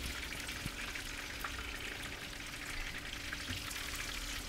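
Chicken pakoras in gram-flour batter deep-frying in hot oil: a steady sizzle with a few faint pops and ticks.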